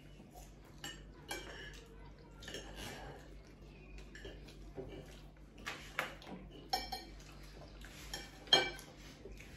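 Knives and forks clinking and scraping on plates while cutting pizza, with a few sharp clinks, the loudest about eight and a half seconds in.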